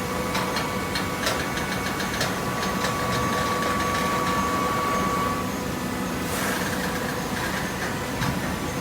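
Automatic hydraulic cardboard baler running with a steady mechanical hum, a run of sharp clicks and knocks over the first few seconds, a high steady tone that stops about five and a half seconds in, and a brief hiss about a second later.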